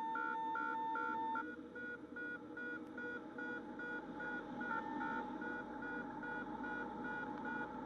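Cessna 172RG's stall warning horn sounding a steady tone that cuts out about a second and a half in and comes back around five seconds in, while a second warning tone beeps throughout, about two beeps a second, over the hum of the engine.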